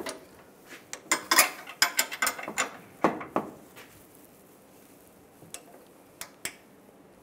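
Torque wrench ratcheting on a tow hook's 18 mm bolts as they are tightened to 63 foot-pounds: a quick run of sharp clicks over the first few seconds, then a few single clicks near the end.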